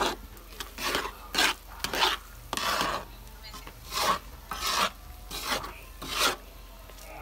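A cooking utensil scraping and rasping against a large metal pan in repeated stirring strokes, about nine in all, one of them longer near the middle. It is stirring sticky rice in a bubbling coconut-and-sugar mixture for biko.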